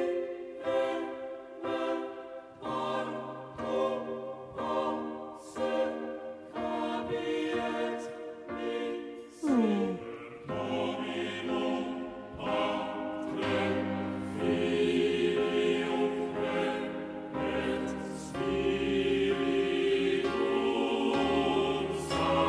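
Live choir and orchestra playing the slow intro of a rock ballad. For the first half, evenly spaced chords repeat a little faster than once a second. Then, after a falling glide about ten seconds in, the music swells into fuller, louder sustained chords with a deeper bass.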